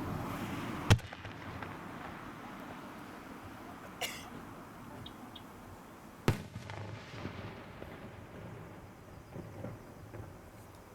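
Fireworks shells bursting overhead: a sharp bang about a second in, a smaller pop with a brief crackle around four seconds, and another sharp bang about six seconds in, with a rolling echo between them.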